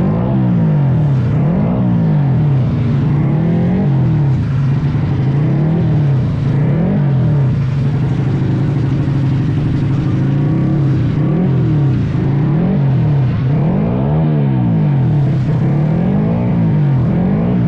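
Drag-racing motorcycle engine being revved over and over, its pitch rising and falling about once a second or so. The revs climb higher in the last few seconds.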